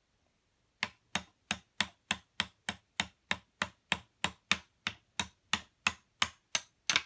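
Small plastic toy hammer tapping again and again on the plastic ice-block tiles of a Don't Drop Chase game board, knocking at a blue block to break it loose. The sharp, even taps start about a second in and come about three a second.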